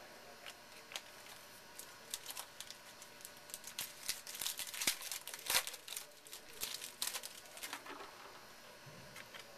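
Trading-card pack wrapper crinkling and tearing as a pack is opened and its cards are handled: a run of sharp crackles, busiest and loudest about four to six seconds in.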